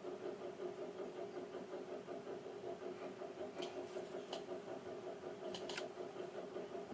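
A steady mechanical hum from repair-bench equipment runs throughout. A few faint light ticks come around the middle and near the end, as small parts are handled on the board.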